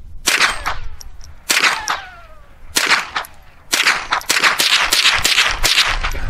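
Ruger 10/22 .22 semi-automatic rifle firing at targets on rocky ground. There are three single shots about a second apart, each followed by a falling ricochet whine, then a quick string of about ten shots over the last two and a half seconds.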